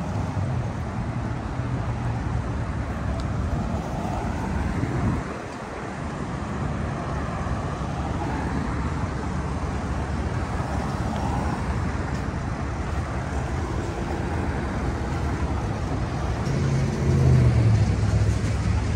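City street traffic: a steady wash of cars passing, with a vehicle's low engine hum growing louder near the end.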